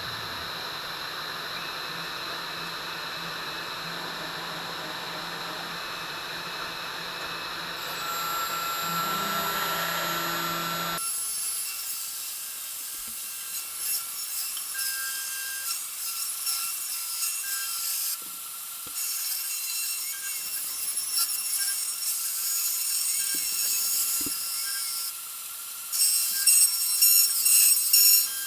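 Home-built CNC router's spindle running steadily, then about eleven seconds in the sound changes abruptly to the cutter milling the test part: a scratchy, crackling cutting noise with a thin whine, louder in bursts near the end.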